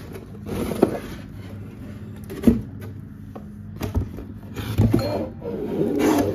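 Corrugated cardboard shipping box being handled and shifted on a table: cardboard rubbing and scraping with several dull knocks, the loudest about two and a half seconds in, and a longer stretch of scraping near the end.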